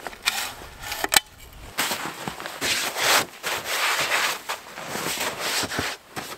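Snow being brushed off an ATV's fender and seat in repeated brisk strokes, after a single sharp knock about a second in.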